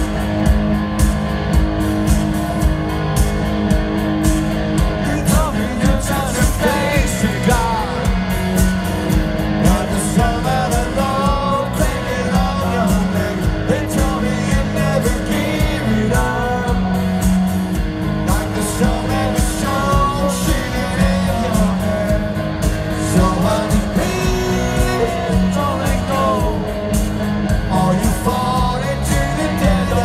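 Live rock band playing: electric guitars, bass and a steady drum beat, with a male lead vocal coming in about six seconds in.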